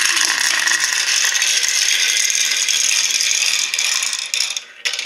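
A handful of small plastic marbles rattling round the plastic funnels and down the track of a Kumon Kumi-kumi Slope marble-run toy: a dense, continuous clatter that thins out into separate clicks near the end.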